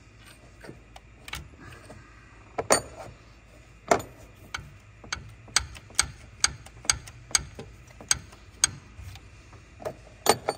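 Truck alternator being worked loose and wrestled out of its mount in the engine bay: a string of sharp clicks and knocks of metal against metal, coming fairly regularly at about three a second through the middle.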